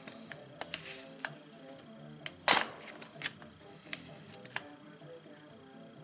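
Small metal tools and engine parts clinking and tapping on a workbench, with one louder clank about two and a half seconds in, over quiet background music.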